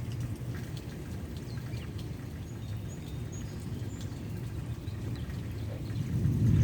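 Rolling thunder from a lightning strike about a mile away: a low rumble that swells much louder near the end.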